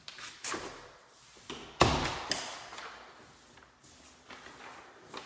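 A closet door being pushed shut with one loud thud about two seconds in, with a few lighter knocks and taps before and after it.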